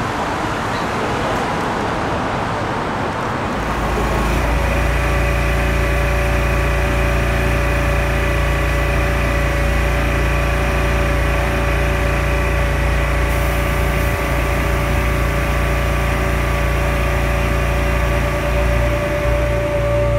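Road traffic noise, then from about four seconds in a steady engine-like hum with several held, unchanging tones.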